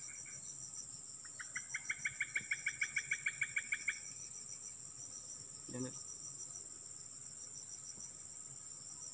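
Steady high-pitched insect chorus, one shrill continuous tone with a faster pulsing buzz beneath it. From about a second in until about four seconds, a louder chirping call of evenly spaced pulses, about eight a second, rises over it. A brief low murmur comes near six seconds.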